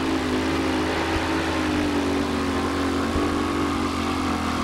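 Keith Black Chrysler Hemi V8 in a two-wheel-drive super modified pulling truck running hard under load, its pitch slowly sinking as the RPMs drop. The engine has gone sour, with one cylinder on the right bank spewing raw alcohol.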